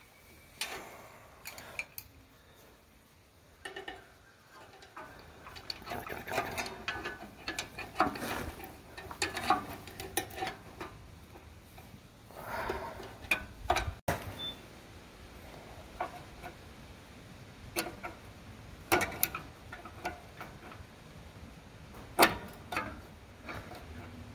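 Screwdriver working the star-wheel adjuster of a trailer's electric drum brake: irregular metallic clicks and scraping, with a few separate sharp clicks later, the loudest near the end. The adjuster is being turned because the drum is dragging on the brake shoes.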